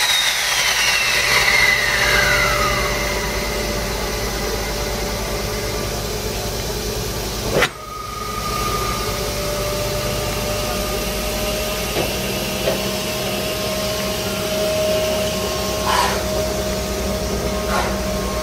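Steady hiss and hum of the compressed-air system of JNR Class D52 steam locomotive D5270, which is worked on air from two compressors carried in its tender instead of steam because its boiler is damaged. A whine falls in pitch over the first few seconds, and a thin steady tone sets in about halfway through.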